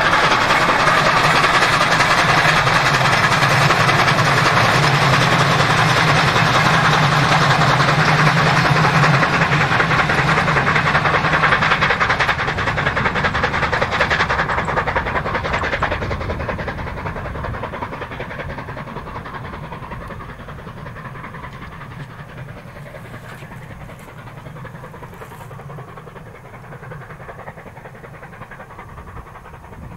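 ČSD class 464.2 4-8-4T steam locomotive 464.202 working a passenger train. It runs loud and steady for about the first twelve seconds, then fades as the train draws away.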